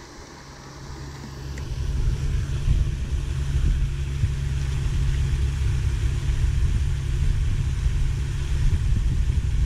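Wind buffeting the microphone: an irregular low rumble that builds up over the first two seconds and then holds.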